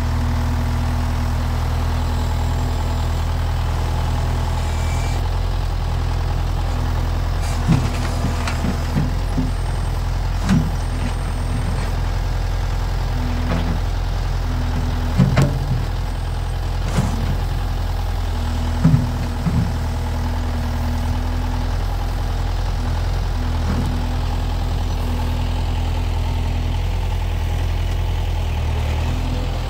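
A 2008 Kubota M5040 tractor's diesel engine running steadily under the front loader as it pushes and stacks broken concrete foundation blocks. A scatter of sharp knocks and clacks of concrete against concrete and the steel bucket comes between about 8 and 20 seconds in.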